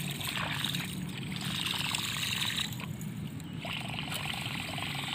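Water sloshing and lapping against the side of a small fishing boat, swelling and easing.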